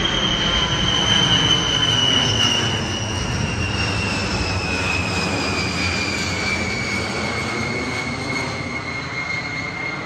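Large multi-engine jet aircraft flying low overhead: a loud jet roar with a high whine that falls slowly in pitch as the plane passes and moves away, easing off toward the end.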